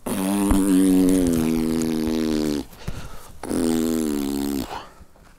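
Male lion calling with long, low, steady moans: one of about two and a half seconds, then a shorter second one after a pause of about a second.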